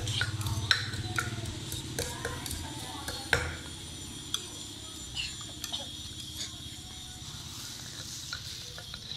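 Wooden pestle knocking irregularly in a clay mortar, pounding chili, garlic and tomato for Thai papaya salad, with a spoon clinking on a plate; the sharpest knock comes about three seconds in.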